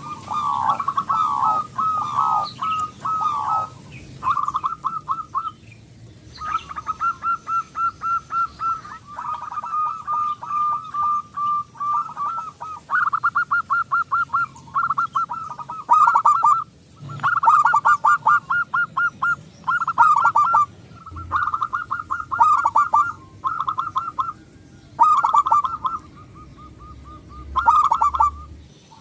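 Zebra dove (local perkutut) cooing: repeated phrases of rapid staccato coos at a steady pitch, each a second or two long, with short pauses between them.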